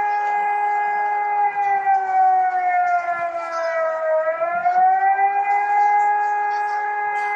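Civil defence warning siren sounding a long held tone over a fainter, lower second tone; about halfway through the pitch sags and climbs back.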